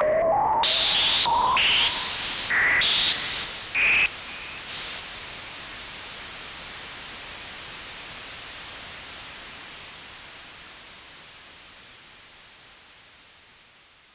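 Behringer Odyssey analog synthesizer playing a run of short, bright resonant blips that jump about in pitch and climb higher. About five seconds in, these give way to a hiss of noise that fades out slowly.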